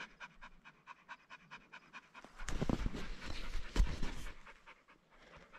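Hunting dog panting rapidly in quick, even breaths after the hunt. About midway, louder rustles and knocks join it.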